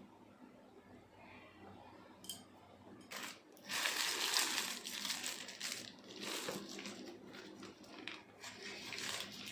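Packaging being handled and opened, crinkling and rustling in irregular bursts from about three seconds in, after a faint click.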